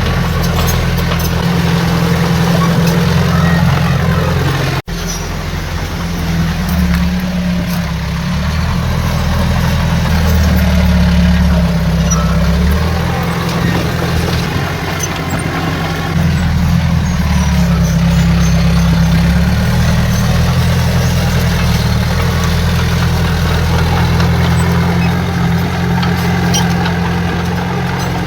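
Heavy diesel engine of earthmoving machinery running steadily, swelling louder under load three times. The sound cuts out for an instant about five seconds in.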